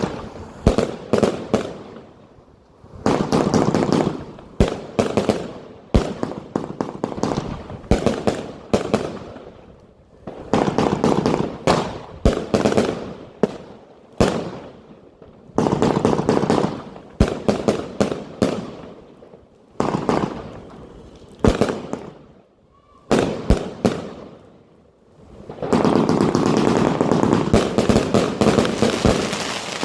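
Argento Sacramentum B, a 100-shot 30 mm compound fireworks cake, firing in volleys: clusters of launches and loud breaks with crackle, separated by short pauses. Near the end the shots run together into a dense, continuous barrage.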